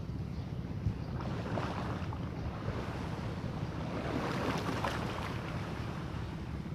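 Wind buffeting the microphone with a steady low rumble, while a wave washes up the beach, its hiss swelling from about a second in and peaking near the end before fading.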